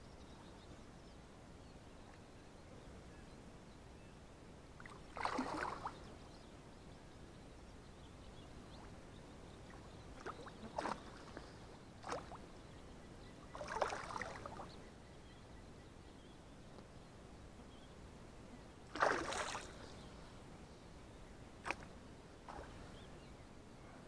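Hooked pike splashing at the water's surface beside the boat while it fights the line: about five separate splashes a few seconds apart, with quiet water in between and one sharp click near the end.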